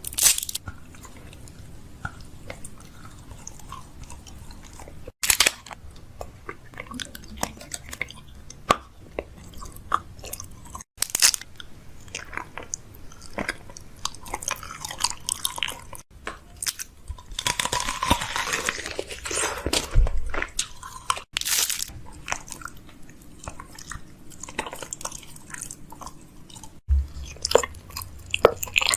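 Close-up chewing and crunching: many small crisp crunches and mouth clicks, with a denser run of crunching about eighteen seconds in.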